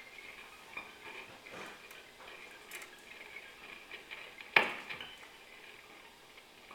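Electric guitars played sparsely with light taps: scattered soft ticks over a faint, steady high tone, with one sharper, louder strike that rings briefly about two-thirds of the way through.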